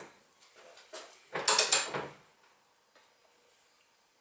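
Hand torque wrench ratcheting on a bolt being tightened to 50 foot-pounds, with a few light clicks and then one loud metallic clack about a second and a half in.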